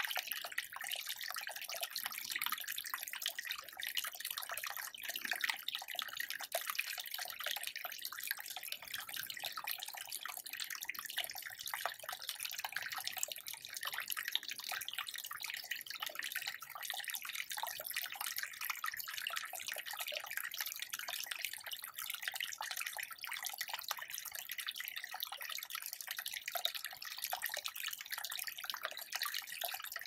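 Small forest stream babbling and trickling steadily, a mostly high-pitched splashing with its low end thinned out by noise reduction.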